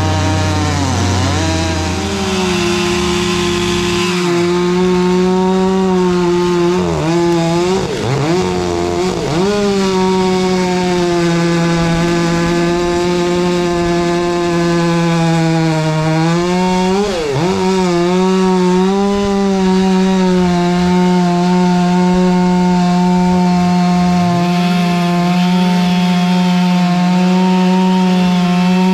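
Stihl MS 500i two-stroke chainsaw running at high revs while cutting through a log. Its engine note rises about two seconds in, then dips and recovers several times as the saw loads down in the cut.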